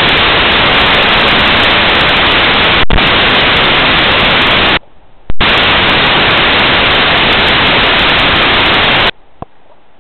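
Loud, steady static hiss with abrupt edges, cutting out for about half a second about five seconds in and stopping suddenly about nine seconds in.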